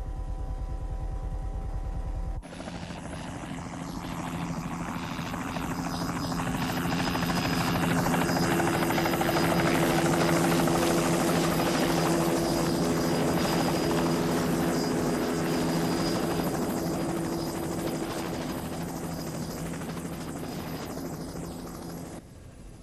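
Turbine helicopter, a Bell 206 JetRanger type, hovering low and setting down: steady rotor and engine noise with a high turbine whine. It swells to its loudest about ten seconds in, then eases off and cuts away just before the end. For the first two seconds there is instead a lower, pulsing aircraft drone.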